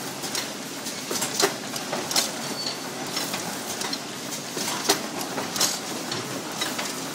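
High-speed cellophane overwrapping and box packing machine running: a steady mechanical clatter with a sharp clack about once a second as each box is pushed through and wrapped in film.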